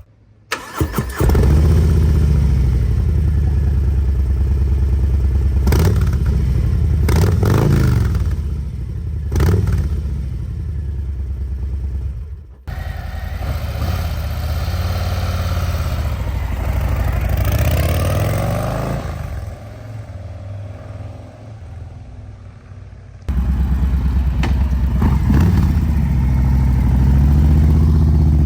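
The Milwaukee-Eight 117 V-twin of a 2023 Harley-Davidson Low Rider ST heard through its slip-on mufflers in several short clips. It idles with quick throttle blips, then its revs rise and fall for several seconds, it runs quieter for a few seconds, and it idles loudly again with another blip.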